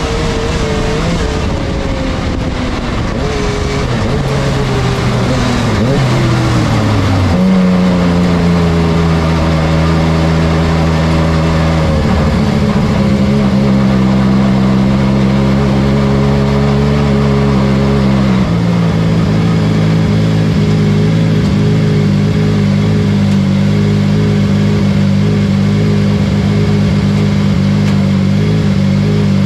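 Yamaha MT-09 three-cylinder motorcycle engine in a kartcross car. The revs fall away over the first several seconds as the car slows and shifts down, then the engine runs at low, steady revs with a couple of sudden small changes in pitch.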